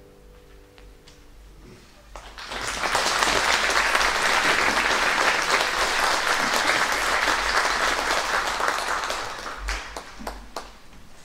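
Concert audience applauding after the guitars' last notes fade. The applause starts about two seconds in, stays even, then thins out near the end with a few scattered knocks.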